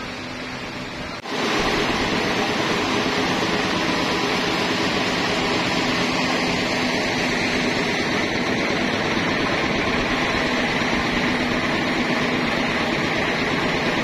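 Steady machinery noise with a low hum, jumping up abruptly about a second in and then holding level.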